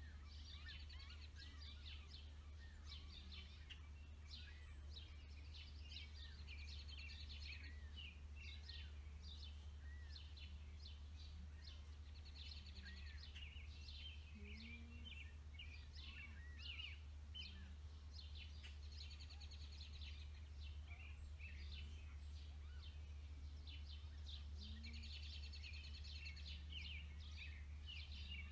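Small birds chirping and trilling without a break, with a buzzy trill that comes back every several seconds, over a faint steady low hum.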